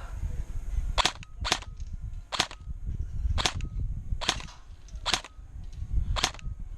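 Airsoft gun firing seven single shots, sharp cracks at uneven intervals about a second apart.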